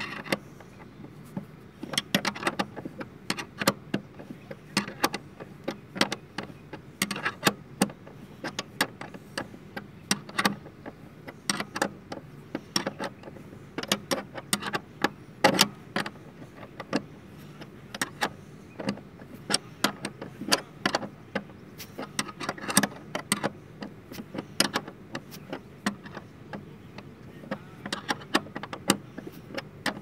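Steel wrench clicking and clanking on a car seat-rail mounting bolt as it is worked anticlockwise in short strokes, giving irregular sharp metallic clicks a few times a second. The bolt is tight because it carries the seat's weight.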